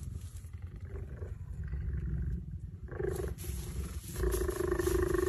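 Cheetah making cat-like, meow-like calls over a low purring rumble: a short call about three seconds in, then a louder, longer one near the end.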